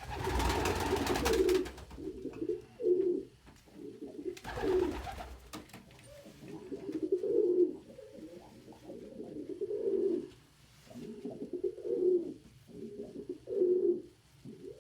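Domestic pigeons cooing, low coos repeated one after another. Two short bursts of rustling noise come through: one at the very start, a shorter one about four and a half seconds in.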